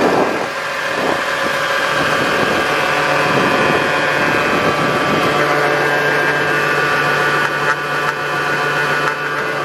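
Case IH Maxxum 125 tractor's diesel engine idling steadily, heard close up from around the rear of the tractor.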